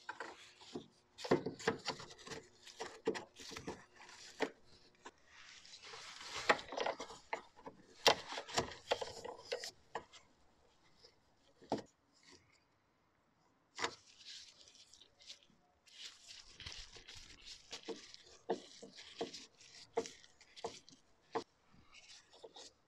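A new fuel filter canister being handled and fitted into its clamp bracket under a car: a busy run of plastic and metal clicks and knocks with rubbing and scraping, a short lull about halfway, then more scattered clicks.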